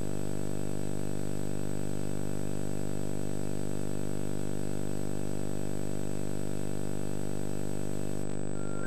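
Steady electrical buzz-hum with many overtones, a thin high whine and tape hiss, unchanging in level: the noise floor of a VHS tape's audio track playing under a silent warning screen.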